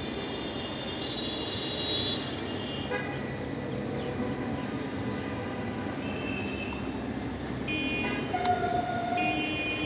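Steady background din with several held, horn-like high tones coming and going, the most layered of them near the end.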